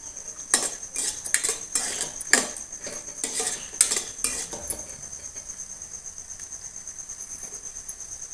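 A steel spoon scraping and clinking against a kadai while it stirs cashews frying in ghee, with a faint sizzle under it. The spoon strokes come thick for the first few seconds and stop about five seconds in.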